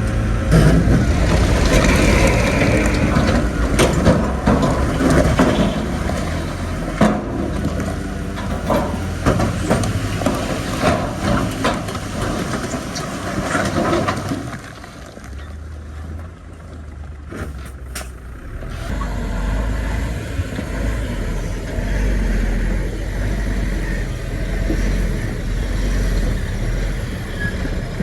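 Heavy diesel earthmoving machinery working: engine rumble under load with repeated clanks and knocks in the first half. The sound drops away for a few seconds just past the middle, then a steady low engine rumble returns.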